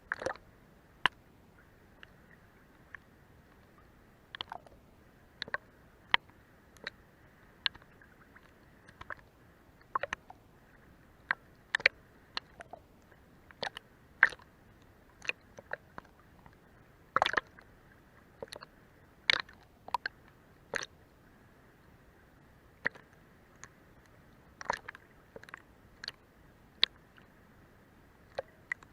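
Sea water lapping under a boat's hull: small, irregular slaps, plops and clicks of water against the hull, a couple a second at most, over a quiet background.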